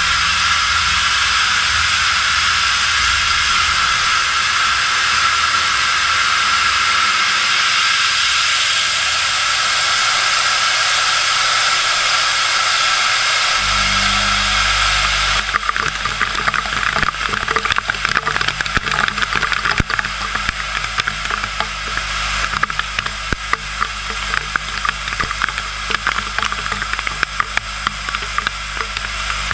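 JTEKT FH500J horizontal machining center slot-milling 4140 steel with an end mill at 3,000 rpm and 330 mm/min feed, cutting a 38 mm deep slot. A steady spraying hiss runs throughout. About halfway through a low hum joins it, followed by a dense, irregular crackle of chips as the cutter bites into the steel.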